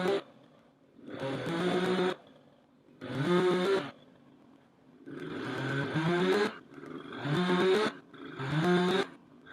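Chainsaw revved in repeated bursts about every second and a half, the pitch rising in each burst and dropping back between them.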